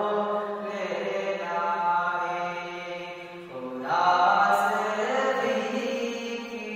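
A man singing an Urdu hamd, a devotional song in praise of God, in a chant-like style with long held notes that slowly bend in pitch. A louder new phrase begins about four seconds in, after a brief dip.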